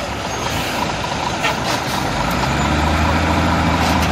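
Heavy diesel truck engine running: a low steady drone that comes in about two seconds in and grows louder. A few short hisses of air are heard around one and a half seconds in and again near the end.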